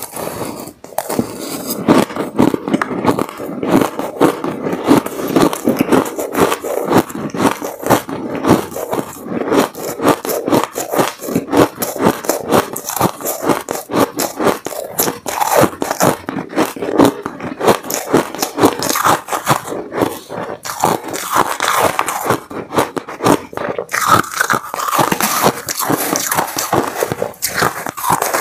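Close-miked chewing of a mouthful of shaved ice: a dense, continuous run of rapid crisp crunches. Near the end a metal spoon scrapes and scoops through the ice in a plastic cup.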